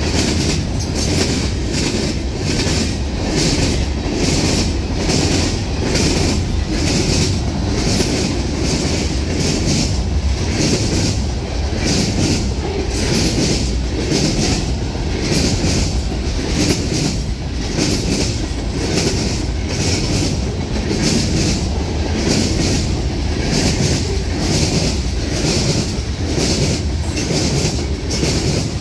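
Freight cars of a long manifest train (covered hoppers, tank cars and lumber flatcars) rolling past close by: steel wheels running on rail in a loud, steady rumble, with a regular clickety-clack as the wheels cross rail joints.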